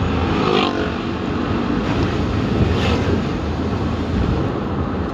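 Steady car cabin noise while driving on a wet road: engine and tyre rumble heard from inside the car.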